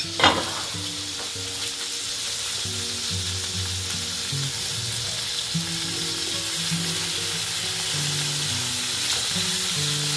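Swordfish fillets frying in hot oil in a pan: a steady sizzle, with a spatula at work over the pan. A short falling swish sounds right at the start.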